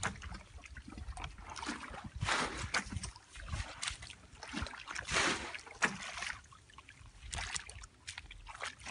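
Shallow muddy water sloshing and splashing in short, irregular bursts as hands grope and feet wade through it.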